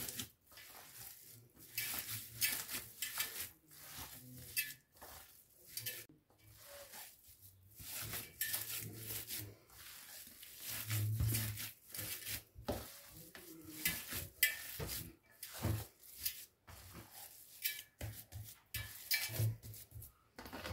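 Hands kneading minced-meat mixture in a perforated stainless-steel pan: irregular wet squishing and slapping, with dull knocks of the meat against the metal pan.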